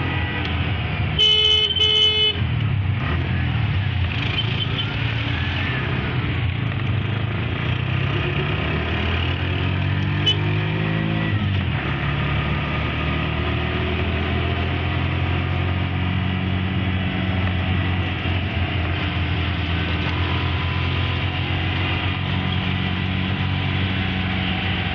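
Steady road-traffic and engine noise while driving in city traffic among auto-rickshaws, with two short vehicle-horn honks about a second in.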